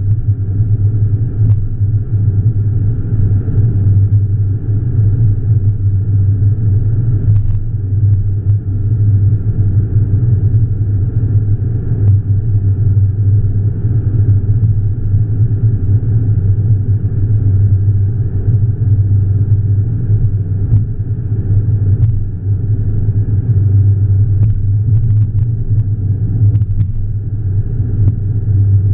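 Steady low rumble of a car cruising at highway speed, with road, tyre and engine noise heard from inside the cabin.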